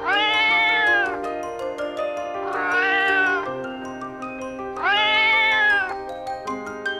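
A cat meowing three times, each a long drawn-out meow of about a second that rises and then falls in pitch. Background music plays underneath.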